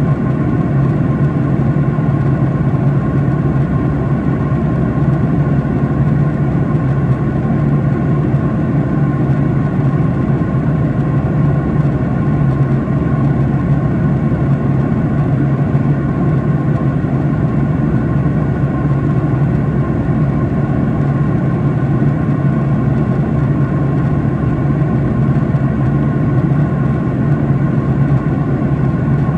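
Steady cabin drone inside a Boeing 737-800 in cruise: the hum of its CFM56-7B turbofan engines and the rush of air over the fuselage, deep and unchanging, with a few faint steady tones.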